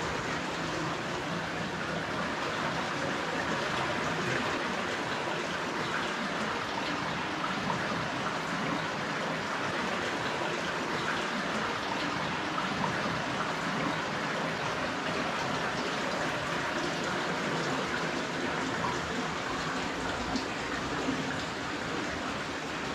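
Steady rush of running water from the underground stream of a resurgence cave.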